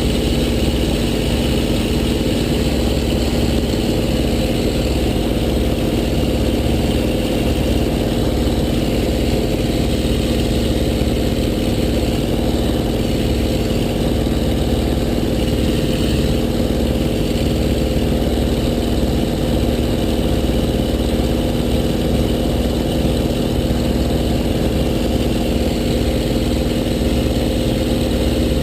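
Small RC warbird's electric motor and propeller running steadily at a constant pitch, with wind buffeting the microphone.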